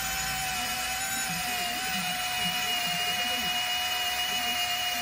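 A small electric motor running at a steady speed, giving a high, even whine.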